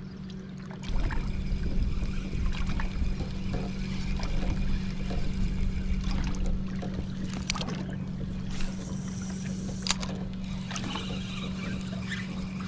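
A boat motor running with a steady hum. A low rumble comes up about a second in, and a couple of sharp clicks sound later on.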